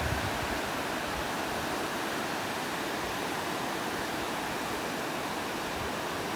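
Waterfall rushing steadily, an even hiss of falling water with no breaks.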